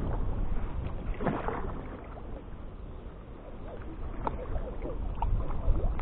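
Kayak paddle strokes in choppy river water: a blade dips and splashes about a second in, then water drips and trickles off the paddle.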